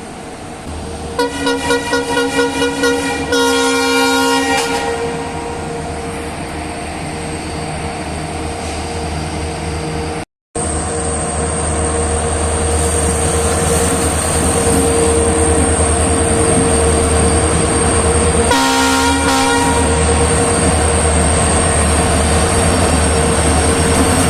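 Train horn blowing about a second in, holding a two-note call for several seconds, and sounding again briefly near the end, over the steady rumble and hum of the train running. The sound cuts out for a moment about ten seconds in.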